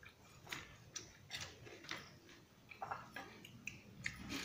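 Eating sounds of rice and fish curry eaten by hand: chewing and lip-smacking, heard as irregular short clicks a couple of times a second.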